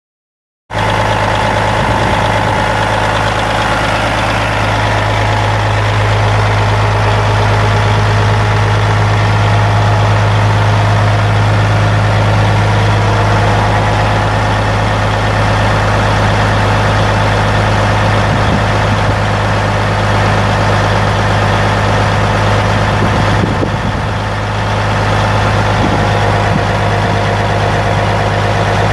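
Caterpillar 3406 14.6-litre inline-six turbo diesel of a 1998 Kenworth T600 semi truck idling steadily, starting about a second in, with a low, even hum.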